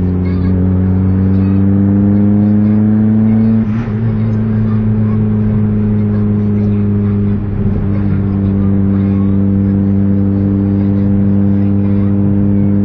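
Mazda MX-5's freshly rebuilt four-cylinder engine being run in on the road: it pulls with rising pitch, breaks off briefly about four seconds in, runs steadily, breaks again about seven and a half seconds in, then holds a steady pitch.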